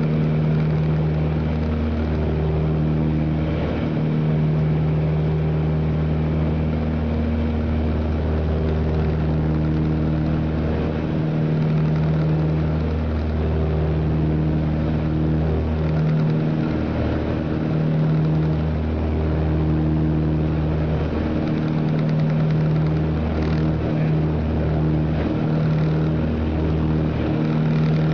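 Piper Seneca II's twin turbocharged six-cylinder engines and propellers droning steadily, heard from inside the cabin in flight. The low drone throbs and dips unevenly every second or two.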